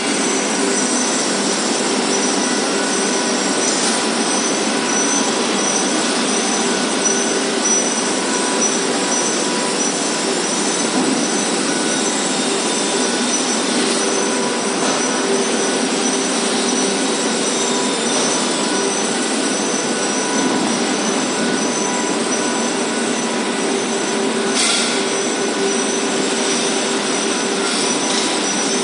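Steady mechanical noise with several held tones, like machinery running continuously.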